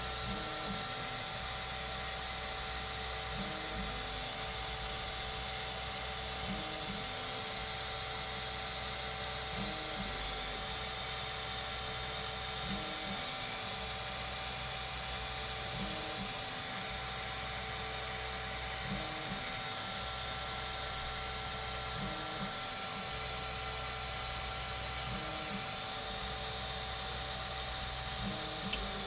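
Formbot Troodon CoreXY 3D printer running its automatic gantry and bed-levelling routine: a steady hum and fan whine, with a move-and-probe cycle repeating about every three seconds as the toolhead steps to points across the bed. A short sharp click comes near the end.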